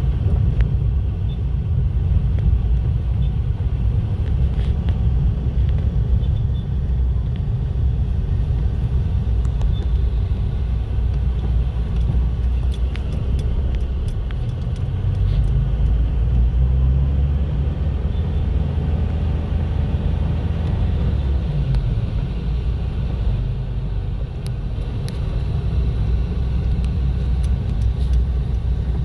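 Steady low rumble of car traffic on a road, with no break or change throughout.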